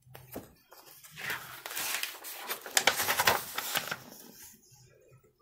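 A picture book's paper page being turned: a crisp, crackling rustle from about a second in to about four seconds, then fading.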